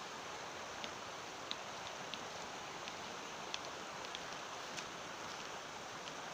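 Steady outdoor rushing background noise, with about a dozen faint, short high-pitched ticks scattered through it.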